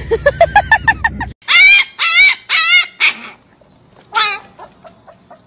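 About eight quick rising yelps in the first second or so, then a husky puppy howling: four short wavering howls one after another and one more about a second later.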